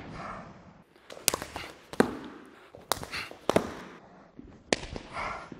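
Sharp slaps and knocks of hands and forearms meeting, with feet shifting on the mat, as a punch is caught and an arm trapped in a Wing Chun drill. There are about eight hits in irregular clusters.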